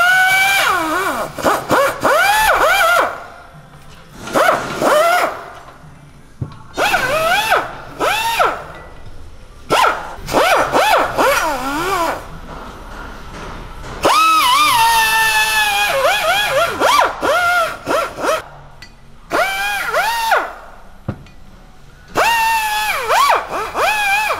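Pneumatic die grinder with a brush attachment running in bursts of a second or two with short pauses between. Its whine dips and rises in pitch as it is pressed into a brake caliper's piston bore to scour off rust and dirt.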